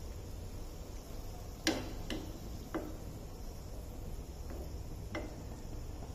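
Perforated metal slotted spoon tapping against a frying pan about five times, a few light clicks with gaps between them, as fried bread pakoras are lifted out of the oil, over a low steady hum.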